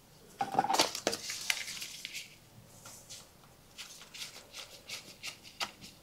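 Gloved hands handling a metal distributor housing: scattered light clinks and rubbing noises, busiest in the first two seconds and then a few soft ticks.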